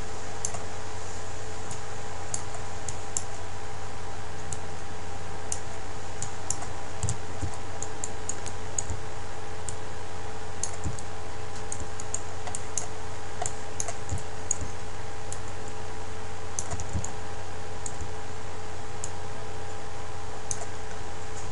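Scattered, irregular clicks of a computer mouse and keyboard while modelling in 3ds Max, over a steady background hum.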